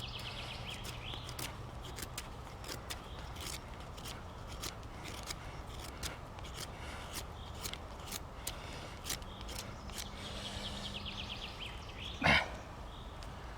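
Knife blade scraping along wood, carving thin shavings for kindling in a run of short, uneven strokes, with one louder sudden sound about twelve seconds in.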